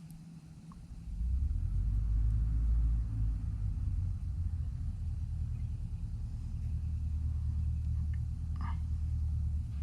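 A steady low rumble that starts about a second in and holds, with a few faint light clicks near the end.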